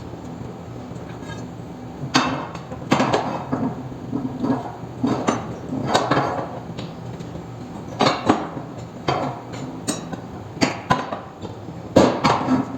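Irregular metal knocks and clanks, as of tools striking metal parts of a roller coaster wheel assembly under repair, starting about two seconds in, over a steady low hum.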